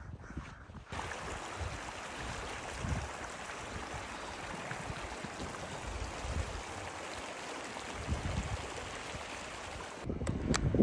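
Shallow mountain creek running over stones between snowbanks, a steady rush of water that comes in about a second in.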